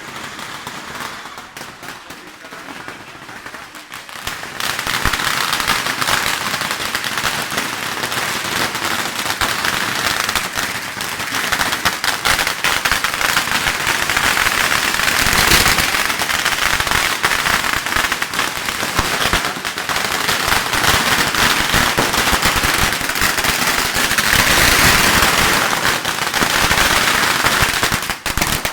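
A long string of firecrackers going off in rapid, continuous crackling bangs, quieter for the first few seconds, then louder and denser from about four seconds in.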